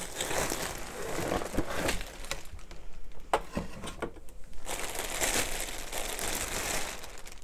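Thin plastic bag crinkling as hands handle the packaged item, with a few sharp crackles. The crinkling drops to a quieter spell about a third of the way in, then picks up again.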